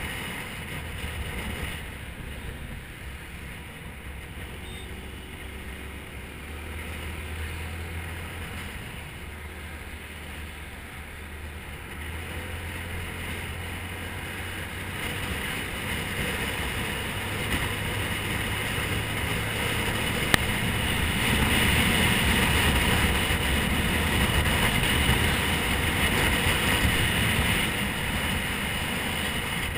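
Motorbike engine running at road speed under steady wind and road noise, growing louder through the second half. A single sharp click about twenty seconds in.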